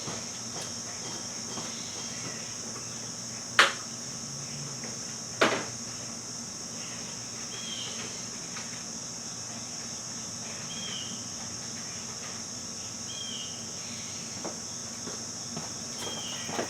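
A steady, high-pitched cricket chorus, broken by two sharp knocks a couple of seconds apart, about three and a half and five and a half seconds in.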